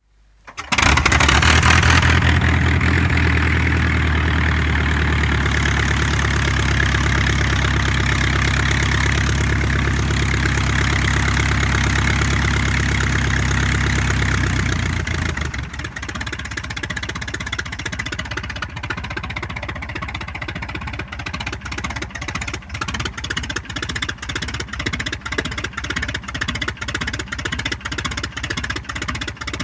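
A Tiger Moth's four-cylinder inline piston engine, heard from outside, starts about half a second in. It runs at a steady, faster speed, then about halfway through it drops to a slow tickover in which the separate firing beats can be heard.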